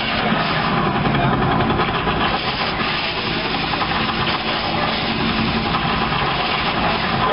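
Vehicle engines running steadily with a low rumble.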